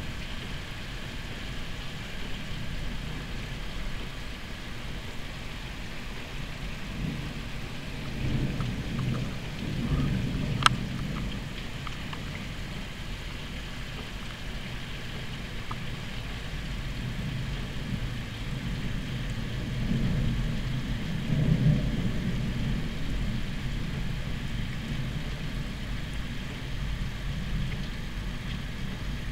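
Steady rain with thunder rumbling twice, about eight seconds in and again about twenty seconds in, and a single sharp click about ten seconds in.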